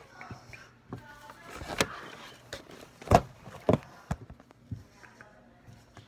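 A series of sharp knocks and bumps as things are handled and moved about, about half a dozen in all, the loudest a little after three seconds in.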